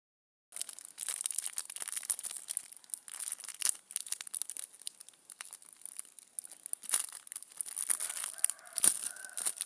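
Packaging being handled and opened, with irregular crinkling, rustling and small clicks.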